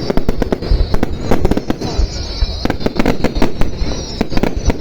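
Fireworks display going off in a dense, irregular barrage of bangs, several a second, over a steady high-pitched hiss.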